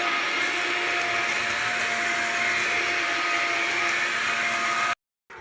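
Dyson V7 Animal cordless stick vacuum running on max power: a steady high motor whine over rushing air, cutting off suddenly near the end.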